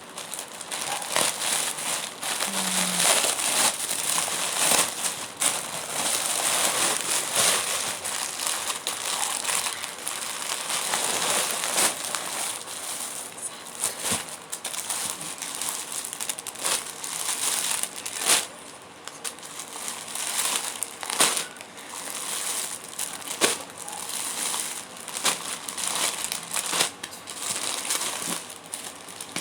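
Packaging crinkling and crackling as it is handled and opened, a continuous rustle with many sharp crackles throughout.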